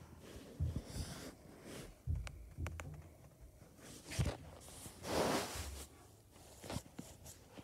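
Soft rustling and scattered light knocks of a phone being handled and moved about, with one longer, louder rustle about five seconds in.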